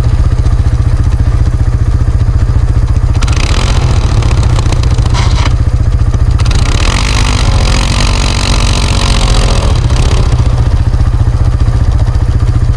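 ATV engines running: one runs steadily and close by, while another revs up and down, with two long stretches of rushing noise, as a stuck ATV works to free itself.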